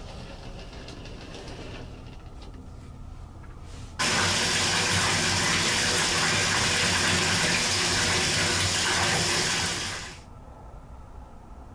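Bath tap running full, water pouring into a bathtub as it fills: a loud, steady rush that starts suddenly about four seconds in and fades out after about six seconds.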